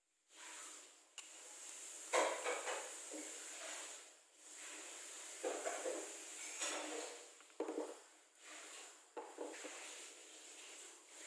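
Small metal carburettor parts being handled and set down on a hard surface: irregular light clinks, taps and scraping, with a few sharper clicks.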